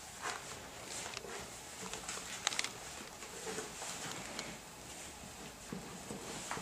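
Leather rustling as a tall over-the-knee leather boot is pulled on over leather trousers, with scattered light clicks and a brief cluster of sharper ticks about two and a half seconds in.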